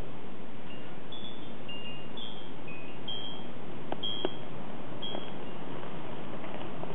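Wind chimes tinkling: a scattering of short, high ringing notes at several different pitches over a steady hiss, with two sharp clicks about four seconds in.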